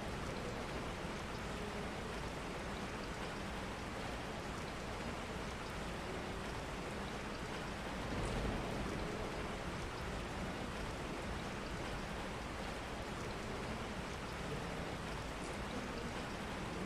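Steady rain falling, an even hiss with a slight swell about eight seconds in.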